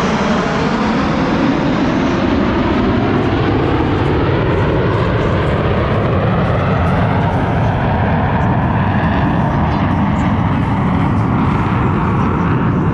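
Blue Angels jet flying past with a loud, continuous jet engine roar, its tone sweeping down and back up as it passes.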